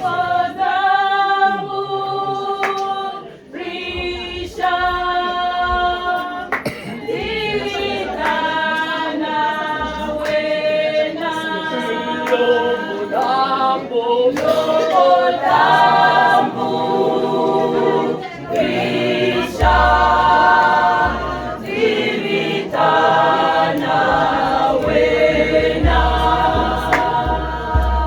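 Choir singing a cappella in harmony, in long held notes that move every second or two.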